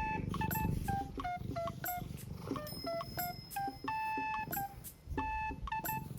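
Background music: a light melody of short, beep-like electronic notes, a few held a little longer.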